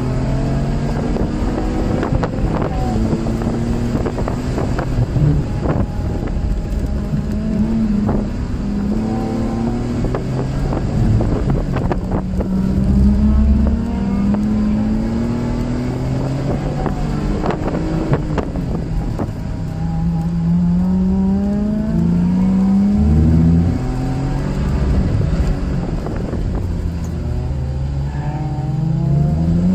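A car engine heard from inside the cabin under hard track driving, revving up in rising sweeps and dropping back at each lift or shift, again and again, over steady road and wind noise with occasional short knocks.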